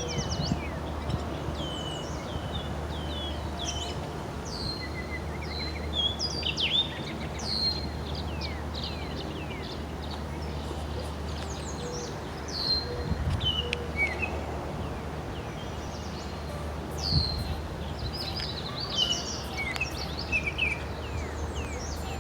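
Several songbirds chirping, with many short high calls that sweep downward, scattered throughout. Underneath is a steady low rumble.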